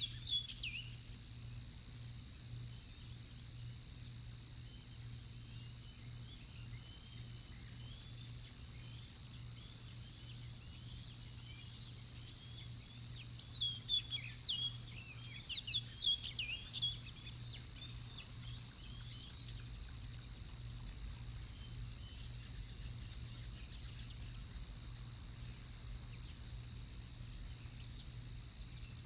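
Juvenile bald eagles squeeing: short clusters of high, chittering, downward-sliding notes, a brief burst at the start and a longer string about halfway through, over a steady low hum.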